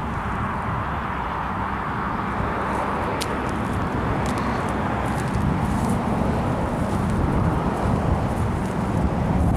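Wind buffeting the camera microphone: a steady rushing rumble that grows louder about halfway through.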